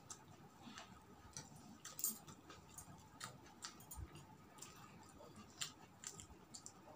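Near silence broken by faint, irregular small clicks and ticks, the sharpest about two seconds in.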